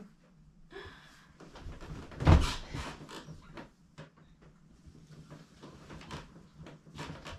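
A heavy thump about two seconds in, a person dropping down onto a mattress, amid light rustling of bedding and small knocks.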